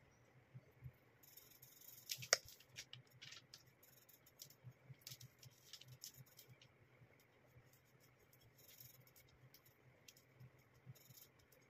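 Faint small clicks and scratches of a paintbrush dabbing paint onto a glass jar and of the jar being handled on paper, with one sharper click about two seconds in, over a low steady hum.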